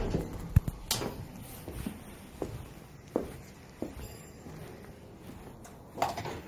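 Scattered light knocks and taps, about half a dozen at irregular intervals, over a quiet room background; the largest comes near the end.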